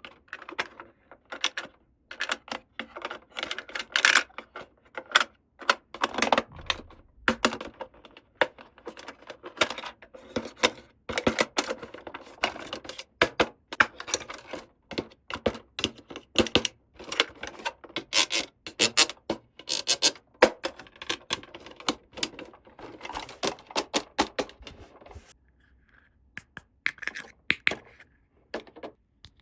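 Small plastic toy pieces and packaging handled by hand: a dense run of clicks, taps and rustles that thins out over the last few seconds.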